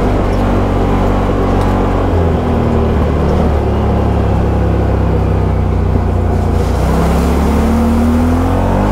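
ATV engine running under way on the trail. Its note shifts about two seconds in and rises near the end as the throttle changes.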